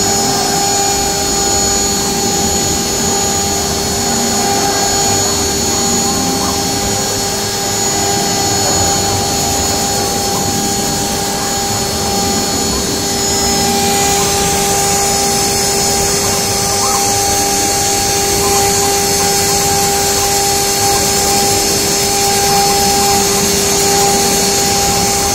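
High-speed engraving spindle on a multifunction wood-turning and engraving machine running steadily with a constant whine while its small bit carves into a turned wooden spindle. The cutting hiss gets brighter about halfway through.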